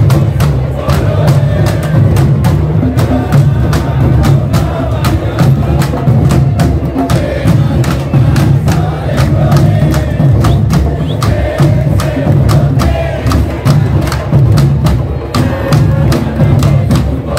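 Candombe drum ensemble playing a continuous, dense rhythm: the deep piano drums underneath, the chico and repique drums above, each drum struck with one bare hand and one stick, the stick also clicking on the wooden shells.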